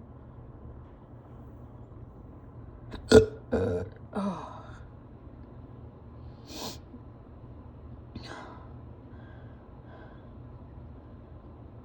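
A person hiccuping: one sharp, loud hiccup about three seconds in, followed closely by two shorter voiced sounds, the last falling in pitch. Two fainter breathy sounds come a few seconds later.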